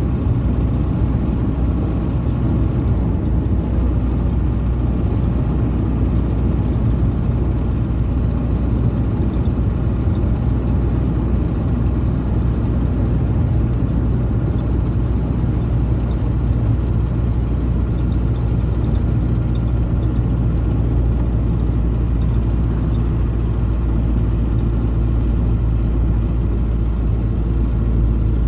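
Ford Cargo 712 light truck's diesel engine running steadily at highway cruise, a constant low drone with road noise.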